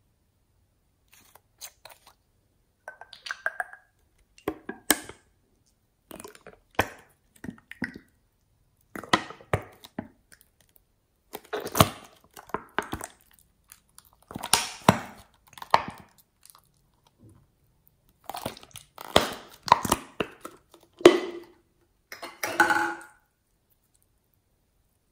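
Clear blue slime being squeezed and stretched by hand: sticky squelches and crackling air-bubble pops in irregular bursts, stopping about two seconds before the end.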